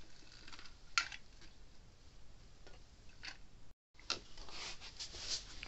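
Faint clicks from a hand caulking gun being squeezed as PL construction adhesive is laid in beads on a plywood subfloor, one about a second in and more around three seconds. After a short break, faint scraping and rustling.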